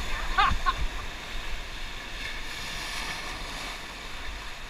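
Steady rushing of river water around the raft, with wind on the microphone; a short voice call about half a second in.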